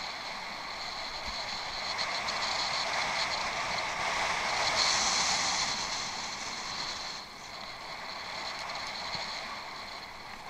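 Bicycle riding off-road: a steady rush of tyres rolling over rough ground mixed with wind on the head-mounted microphone. It grows louder around the middle and drops off suddenly about two-thirds of the way through.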